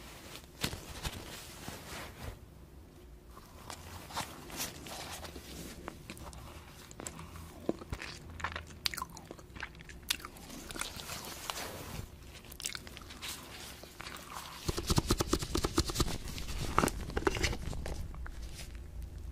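Cotton candy being bitten and chewed, with crisp crackling bites. Near the end comes a louder, dense run of rapid crackles.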